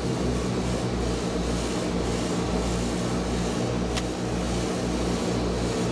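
Cockpit noise of a Douglas DC-6's four Pratt & Whitney R-2800 Double Wasp radial engines and propellers in flight: a steady drone with a regular throb in the low end. A single sharp click about four seconds in.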